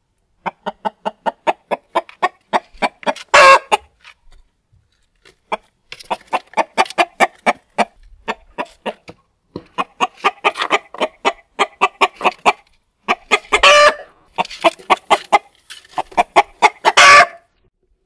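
Indian-breed rooster clucking in rapid runs of short calls, about five a second, three times building to a louder, harsh squawk.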